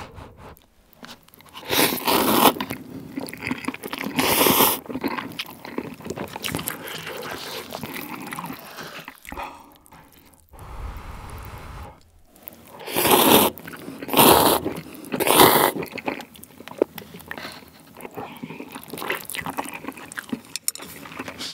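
Close-miked eating of Chapagetti jjajang cup noodles: about five loud, short slurps of the thick-sauced noodles, with wet chewing in between.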